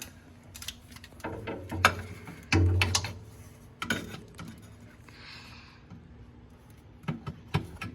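Irregular clicks, knocks and scraping of a screwdriver working plastic push-through clips out of a car's plastic rear suspension cover, with a louder stretch of rattling handling about two seconds in.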